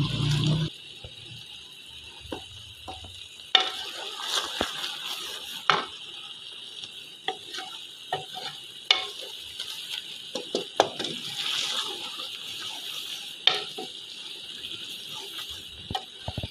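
Black chickpeas frying and sizzling in ghee in a pot as a wooden spoon stirs them, with scattered clicks and scrapes of the spoon against the pot. This is the bhuna stage, roasting the chickpeas in ghee once their water has cooked off. A loud low sound cuts off abruptly under a second in.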